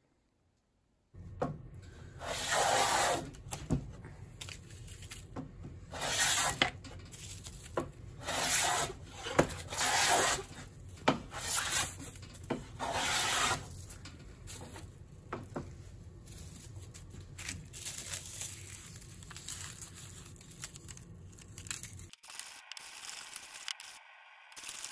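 Capewell hand plane cutting shavings from a wooden board: a series of rasping strokes of the iron through the wood, each about a second long, with short knocks as the plane is set down and drawn back. It starts about a second in, and the strokes are loudest in the first half.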